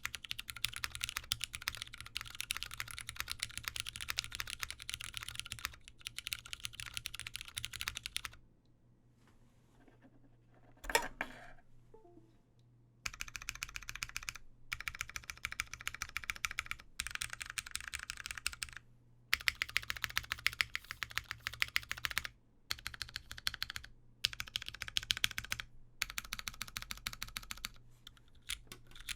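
Sun68 gasket-mounted mechanical keyboard with lubed Cherry MX Brown Hyperglide switches on a full POM plate, GMK keycaps and no foam, typed on in fast runs of keystrokes. The typing stops for several seconds near the middle, broken by a single louder knock, then resumes in bursts with short gaps.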